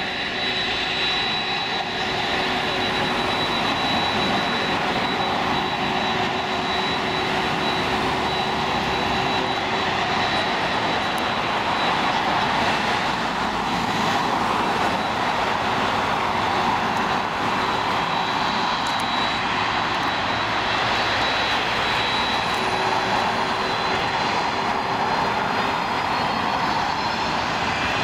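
Jet airliner engines running loud and steady, with a high whine held over the rushing noise and a slight swell midway.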